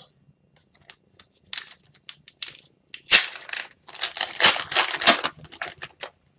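Upper Deck hockey card retail pack wrapper being torn open by hand and crinkling, in a run of crackly bursts that are loudest about three seconds in.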